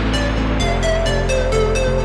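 Background music: an electronic track with sustained bass notes, a steady beat and a stepping keyboard melody.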